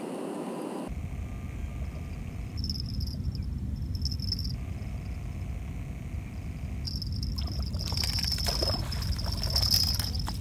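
Wind rumbling on the microphone, with the high whirr of a spinning reel being cranked as a hooked fish is reeled in from the shore. The whirr comes in two spells, the second joined by rattling clicks near the end.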